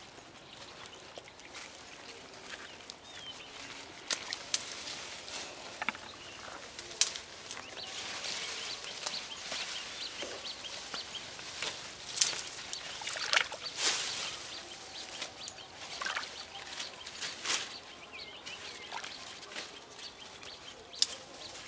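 Cut leafy branches rustling as they are handled and laid down, with scattered sharp snaps and crackles of stems and twigs, the loudest cluster about halfway through.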